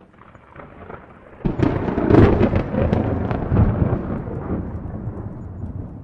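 A thunderclap. A low rumble starts, then about a second and a half in comes a loud crackling crack. It rolls on as a rumble that slowly fades.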